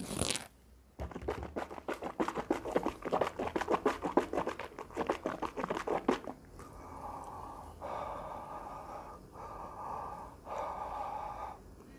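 A man sips water from his palm and swishes it around his mouth, a rapid wet sloshing that lasts about five seconds. Then, with the water held in his open mouth, he breathes four times, each breath lasting about a second.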